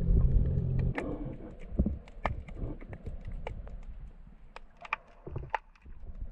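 A low motor hum that cuts off suddenly about a second in, followed by scattered sharp clicks and ticks, a few a second and irregular.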